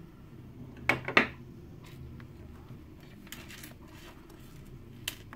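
Fishing tackle handled on a work table: two sharp clicks about a second in, then a few faint clicks and taps.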